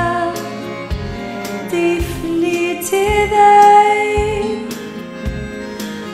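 A woman singing long held notes over a backing track, with a soft low beat about once a second. The highest note, about three to four seconds in, is the loudest part.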